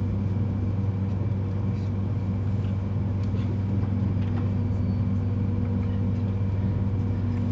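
Steady low hum inside an ICE 3 high-speed train's passenger car as the train begins to move off, with a few faint clicks.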